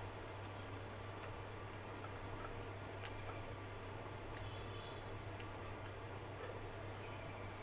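Fingers mixing rice and dal on a plate, soft squishing with a handful of short, sharp clicks, over a steady low hum.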